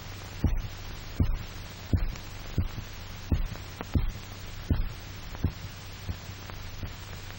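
A dog's heartbeat: low thumps about every three-quarters of a second that grow weaker and fainter toward the end, over a steady low hum. The heart is failing as the dog's blood is drained off, shortly before it stops.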